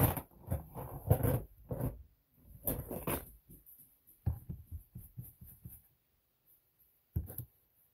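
Irregular taps, knocks and rubbing as a makeup brush and a plastic palette are handled close to the microphone, with a short pause of about a second near the end.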